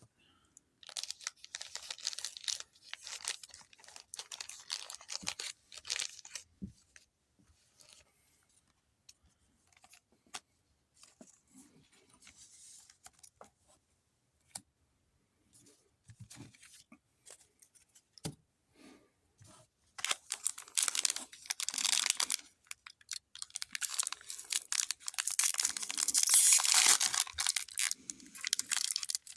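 A Pokémon card booster pack wrapper being torn open and crinkled by hand, in irregular bursts of tearing and crackling, sparse through the middle and loudest in the last ten seconds or so.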